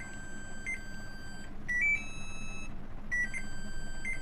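Samsung top-load washing machine control board's buzzer beeping erratically after power-up: short high beeps about every three-quarters of a second over a steady high tone, broken about halfway by two quick rising beeps and a short held higher tone. The board is in error, its program in disorder, which the repairer takes for a memory fault.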